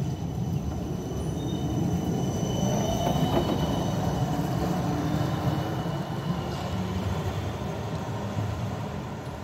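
Siemens Combino trams passing close by, their wheels rumbling on the rails with a thin, high squeal. The sound swells to its loudest a few seconds in and fades as the trams move off.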